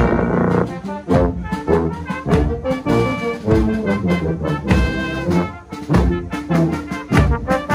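Marching brass band playing a tune: tubas, tenor horns, euphonium and cornets over a steady snare drum beat.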